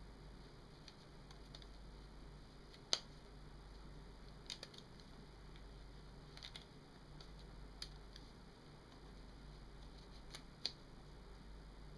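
Scattered sharp clicks and snaps from hands pleating and binding cloth for tie-dye, one loud snap about three seconds in and another near the end, with softer clicks between.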